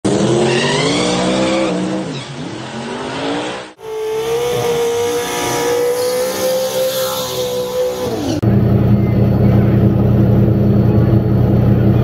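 Three short car clips cut together. First an engine revs up and falls back. Then an engine holds one steady high note for a few seconds before dropping off, and last comes a loud, steady low engine rumble.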